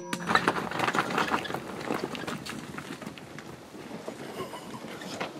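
Hooves of startled blue wildebeest galloping off over dry, stony ground right after a rifle shot, a dense clatter of hoofbeats that is loudest in the first couple of seconds and then fades away.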